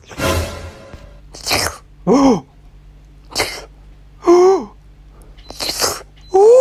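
A run of short, sharp, sneeze-like bursts alternating with short cries that rise and fall in pitch, one sound about every second.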